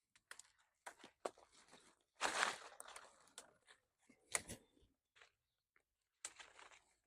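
Dead, dry fig twigs and branches snapped off by hand: irregular sharp cracks and crunchy crackling, loudest a little over two seconds in, with another sharp snap about four seconds in. The clean snapping is the sign that the wood is dead; live wood would flex instead.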